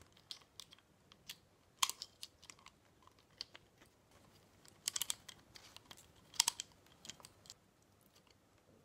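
Small, sharp metal clicks and taps as the burr assembly of a Comandante hand coffee grinder is pressed down against its spring and screwed back together, with louder clusters of clicks about two, five and six and a half seconds in.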